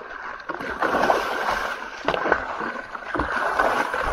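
A large tiger shark thrashing at the side of a boat, its tail churning and splashing the water, with several sharp knocks among the splashing.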